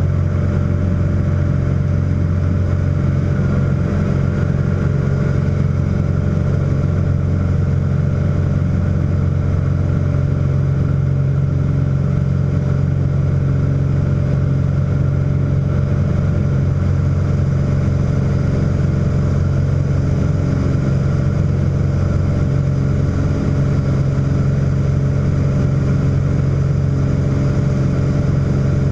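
Light piston airplane's engine and propeller running at steady high power through the takeoff and climb-out, heard from inside the cabin as a loud, even drone that does not change.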